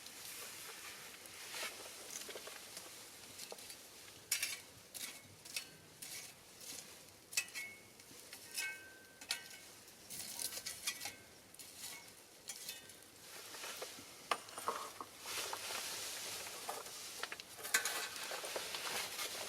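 Small fire of burning pine cones and cherry branches crackling and popping over a steady hiss, with a few brief thin whistles a third of the way through.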